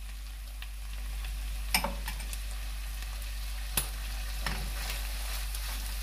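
Shredded chicken filling sizzling in a nonstick wok while a spatula stirs it, with sharp scrapes or knocks of the spatula against the pan about two and four seconds in.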